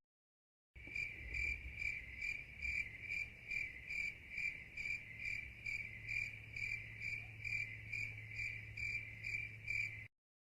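Cricket chirping in an even rhythm, about two chirps a second, over a faint low hum: the 'crickets' awkward-silence meme sound effect.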